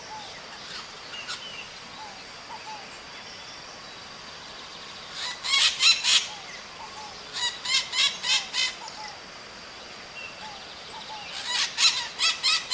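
Maritaca parrot calling in three bouts of harsh, rapid screeching notes, about five or six notes per bout, the first about five seconds in, the second a couple of seconds later, the third near the end.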